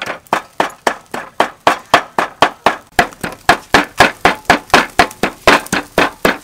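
Cleaver rapidly mincing soft food on a thick round wooden chopping block: a steady run of sharp chops, about four a second.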